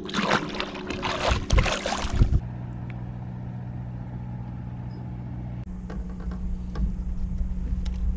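A released largemouth bass splashing at the water's surface for about two seconds. Then the steady low hum of a bass boat's electric trolling motor, with a few faint clicks.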